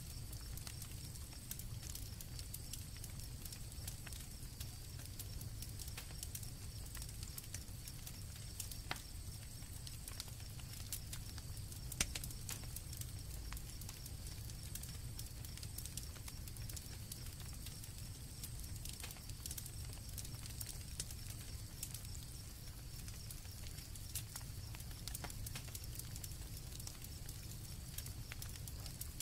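Campfire crackling, with irregular sharp pops over a low steady rumble, while crickets trill steadily in the background.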